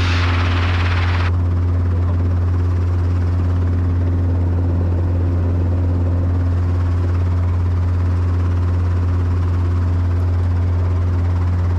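Helicopter running on the ground, heard from inside the cabin: a steady, loud low hum with no change in pitch. A rushing noise over it cuts off suddenly about a second in.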